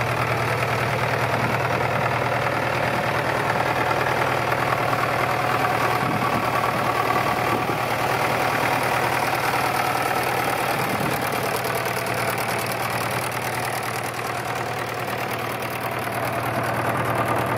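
1954 Fordson Major's four-cylinder diesel engine idling steadily.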